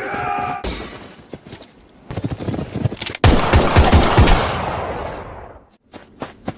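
Action sound effects: a brief pitched ring, then rapid sharp cracks like gunfire about two seconds in, leading into a loud blast a little after three seconds that dies away over about two seconds.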